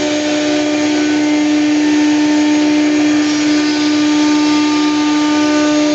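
CNC router machines running, their spindles giving a steady, loud pitched whine over a constant hiss of cutting and extraction noise.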